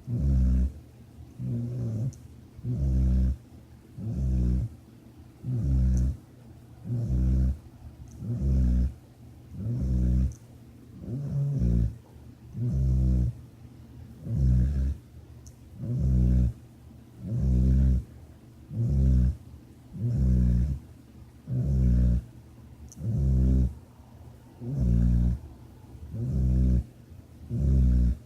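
Snoring: low, rattly snores about once a second in a steady rhythm, each about half a second long.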